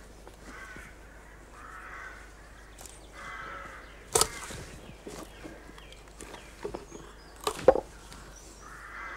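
Froe being worked into a split log to rive off peg slabs: two sharp knocks, about halfway through and again near the end, with smaller cracks and clicks of wood between them. Crows caw several times in the background.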